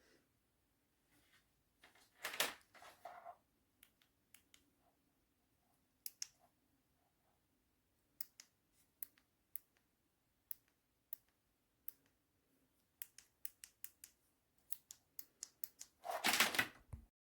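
Scattered sharp clicks, coming about one to two a second for much of the time, with two louder bursts of rustling handling noise, one about two seconds in and one near the end.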